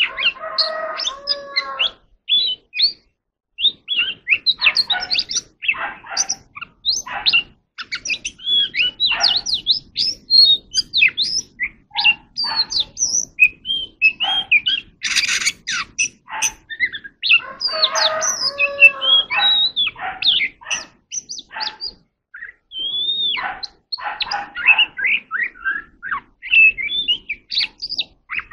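Oriental magpie-robin singing: a long run of varied high whistles, chirps and slurred notes, with short pauses between phrases. Twice, near the start and about two-thirds of the way through, a lower, fuller phrase stands out.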